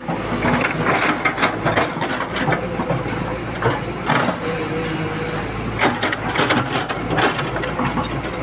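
Tata Hitachi tracked excavator at work: its diesel engine running steadily, with frequent irregular clanks and knocks as the boom and bucket dig into earth.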